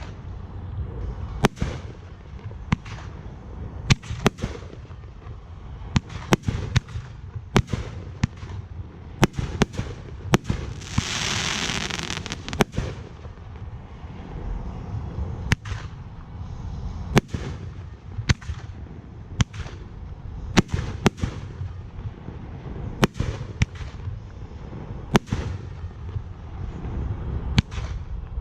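Fireworks display going off: a steady run of sharp bursts, about one or two a second, with a hissing spell lasting a second or two about eleven seconds in.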